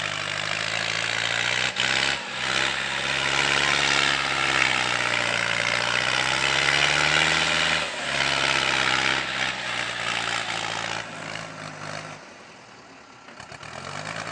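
Heavy vehicle engine running under a loud noisy hiss, its pitch climbing a little before falling suddenly about two-thirds of the way through; the sound drops to a lower level near the end.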